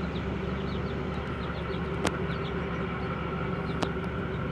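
A ship's engine running with a steady, even drone, heard from on board. Two sharp clicks cut through it, about two seconds in and again near the end.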